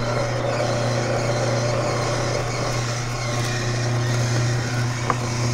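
Samson Advanced horizontal single-auger slow juicer running, its motor giving a steady low hum as kale is fed into the chute and chewed by the auger.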